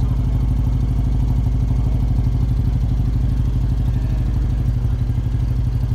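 Motorcycle engine idling steadily, with an even pulsing beat.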